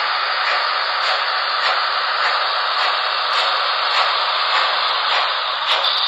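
Electric model steam locomotive running along the track: a steady hiss with faint, regular clicks a little under twice a second.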